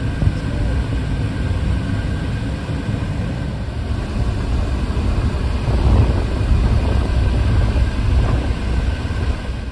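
Car driving: a steady rumble of road and engine noise.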